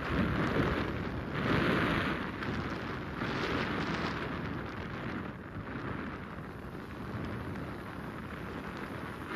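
Wind buffeting the microphone over the noise of a vehicle moving along the road, swelling and easing in gusts.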